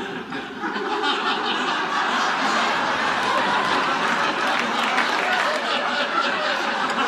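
Studio audience laughing, a sustained wave of laughter that swells up under a second in and holds steady.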